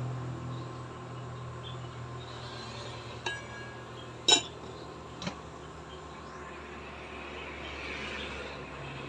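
Three sharp clinks of kitchenware about a second apart, the first with a brief ringing tone and the second the loudest.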